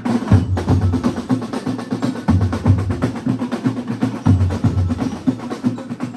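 Background music with a steady, percussion-heavy beat of deep drum hits and clicking wood-block-like strokes, cutting off suddenly at the end.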